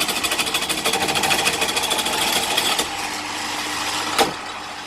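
Titan pillar drill with a 16 mm bit cutting through 4 mm mild steel, opening out a 13 mm pilot hole, with a loud, fast rattling chatter. It gets quieter about three seconds in, and there is one sharp knock about four seconds in.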